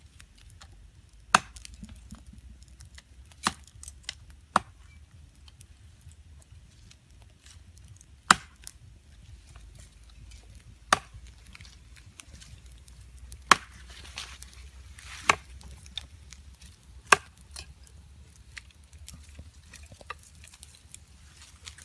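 Sharp, single cracks of wood, about ten of them, spaced irregularly every one to three seconds.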